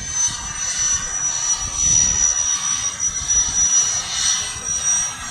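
Jet airliner engines running, a steady high whine over a low, uneven rumble.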